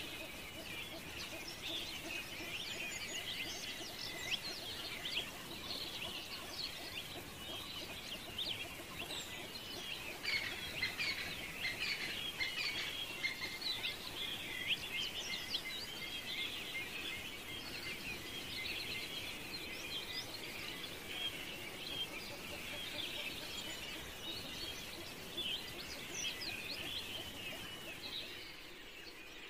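A dense chorus of many small birds chirping without pause, with a brief dip near the end.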